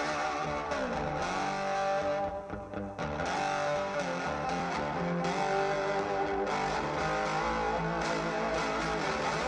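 Guitar-led music with a strong, steady bass line, played back through a homemade 10-litre bass-reflex speaker box whose port is tuned to 56 Hz.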